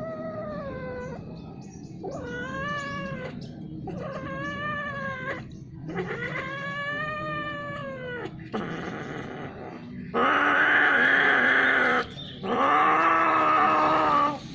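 Domestic cats caterwauling while mating: a run of long, wailing yowls that rise and fall in pitch, about one every two seconds, turning into two louder, harsher calls near the end.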